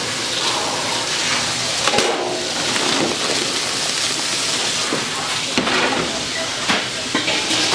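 Steady hiss of steam from a cooking pot, with a few light knocks of kitchen work.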